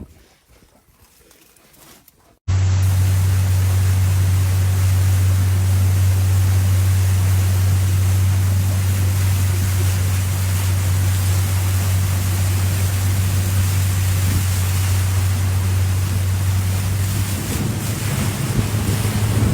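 A steady low engine hum under loud wind and rushing-water noise, starting abruptly a couple of seconds in after near quiet.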